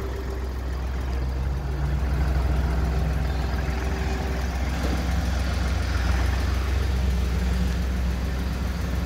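An engine idling steadily: a constant low hum with faint steady tones above it.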